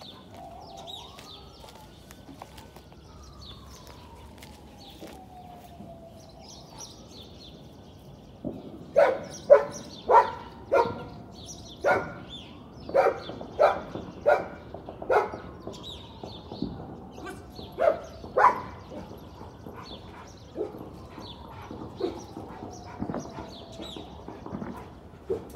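A dog barking, about a dozen loud, short barks, starting about a third of the way in and followed by a few fainter ones. Birds chirp now and then, and a faint, long, slowly falling tone comes and goes.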